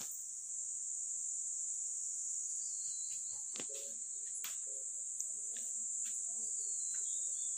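Steady, high-pitched drone of insects shrilling without a break, with a few faint clicks and knocks.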